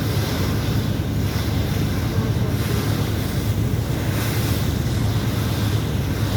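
River launch under way in heavy wind: wind buffets the microphone over rushing water and a steady low drone from the boat.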